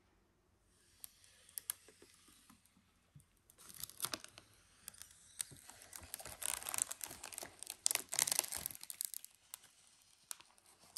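Clear protective plastic film being peeled off a NAS's glossy front cover and then crinkled in the hands: thin crackling and crinkling, faint at first, loudest past the middle, thinning out near the end.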